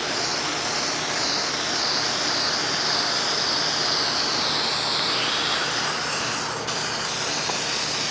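Aerosol can of white spray paint spraying in one long, steady hiss, laying on a second top coat.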